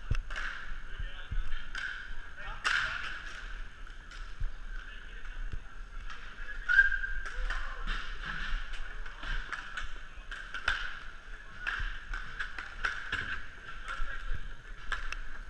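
Inline hockey play: skate wheels rolling on plastic court tiles, with frequent sharp clacks of sticks and puck, the loudest about two and a half seconds in.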